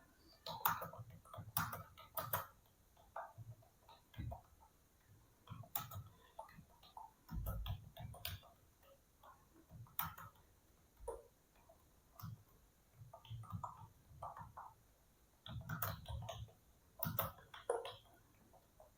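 Typing on a Dell KB216 wired membrane keyboard: quick, uneven runs of soft key clicks with short pauses between them.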